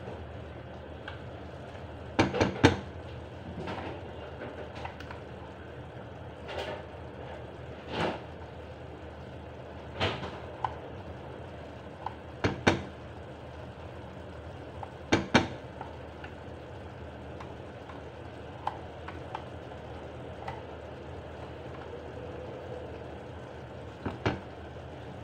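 Cooking utensils knocking and clinking against a pan on the stove: a few sharp knocks and short clatters every couple of seconds over a steady background noise.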